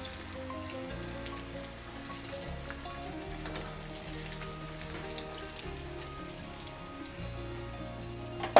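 Breaded chicken fillets sizzling and crackling steadily in hot oil in a frying pan. A single sharp knock near the end.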